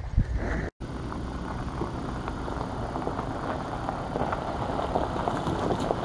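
A Jeep Wrangler towing an empty flatbed trailer drives slowly along a gravel driveway. The low sound of its engine and tyres on gravel grows gradually louder as it approaches.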